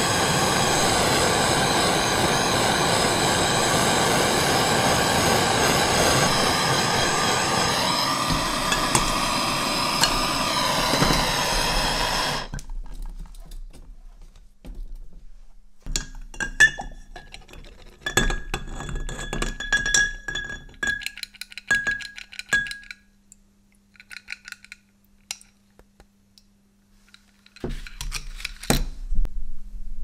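Handheld gas torch blowing with a steady hiss, shut off abruptly about twelve seconds in. Then metal pliers clink and knock against a glass jar, with a quiet gap and a few more knocks near the end.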